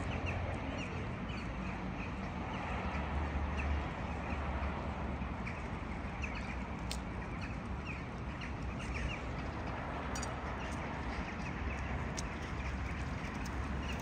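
A large flock of birds calling, many short overlapping calls throughout, over a steady low rumble.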